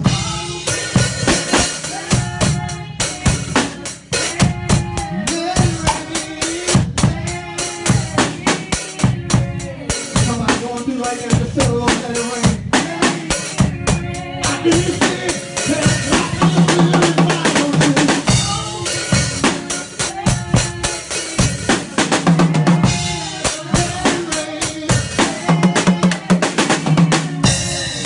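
Drum kit played with a steady, busy rhythm of kick, snare and cymbal hits over a worship song's backing music.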